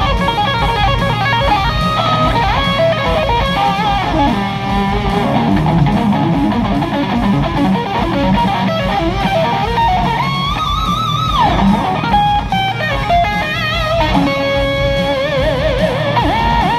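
Electric guitar solo: quick runs of notes, then long held notes with wide vibrato about ten seconds in and again near the end, finishing with a string bend upward.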